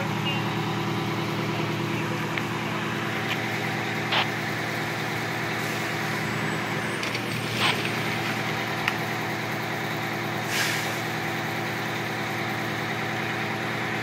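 Fire engine's engine idling steadily, with a few short sharp clicks and a brief hiss about ten seconds in.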